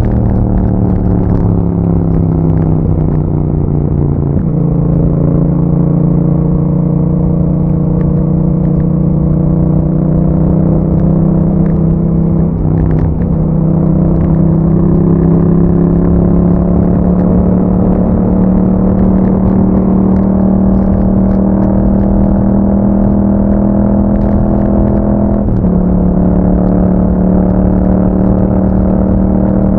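2021 Yamaha MT-07's 689 cc parallel-twin engine running through an aftermarket Akrapovic exhaust while riding. Its pitch falls over the first few seconds, then holds mostly steady, with sudden steps in pitch a few times, as at gear changes.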